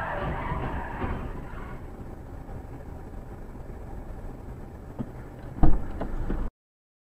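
Dashcam audio of traffic at an intersection: a steady low rumble, with a rushing noise that fades out in the first second and a half. About five seconds in come two short knocks and then a sharp thump, the loudest sound. The sound cuts off abruptly about a second later.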